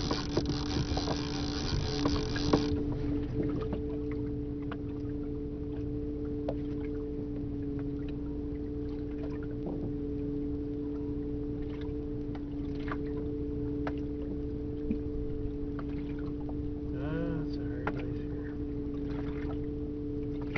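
A small fishing boat's motor hums steadily at a low, even pitch under a low rumble, with scattered small clicks. A louder rushing noise stops abruptly about three seconds in, and a brief wavering call is heard about seventeen seconds in.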